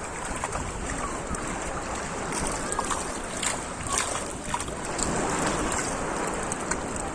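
Shallow sea water washing steadily at the shoreline, with wind on the microphone and a few light ticks about halfway through.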